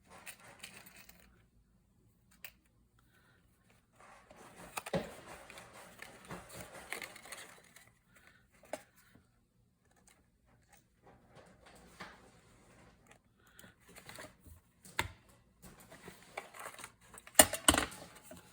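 Paper and small craft pieces being handled and rustled on a table, with quiet pauses, a few sharp clicks and taps, and a louder cluster of sharp clicks near the end.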